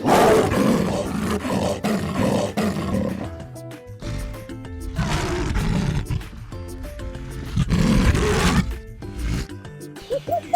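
A big cat roaring three times, each roar rough and drawn out, the first one the longest, over light background music.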